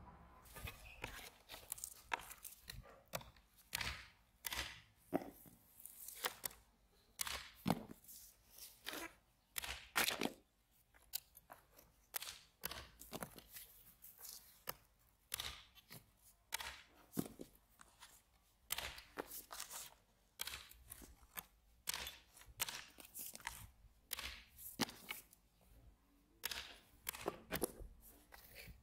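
Small hatchet chopping a thin green stick on a wooden stump: repeated sharp chops and crunches as the blade cuts through the wood, irregular, about one every second or two, some much louder than others.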